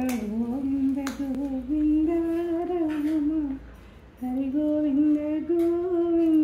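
A woman humming a slow tune in two long phrases, with a short break about three and a half seconds in.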